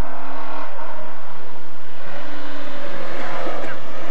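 Rally car's engine running under power as it approaches on a gravel forest stage, over steady tyre and gravel noise.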